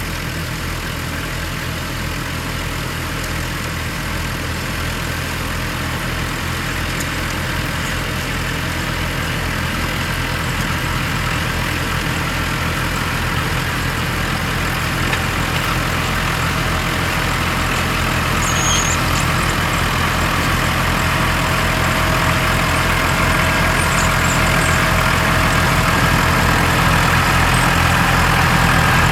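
Diesel tractor engines running steadily during potato harvesting: a Renault Ares 556RX pulling a Reekie Cleanflow 2000 harvester, with a Case IH Maxxum 5130 alongside. The sound grows slowly louder.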